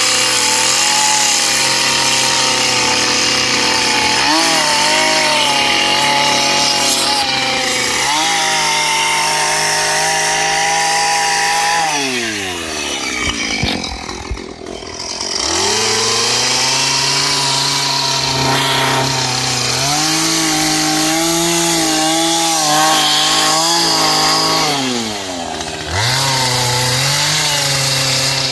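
Two-stroke chainsaw carving into a log at high revs. The engine pitch wavers as the chain bites into the wood. About halfway through the engine drops to idle and then revs back up, and it dips and revs up once more near the end.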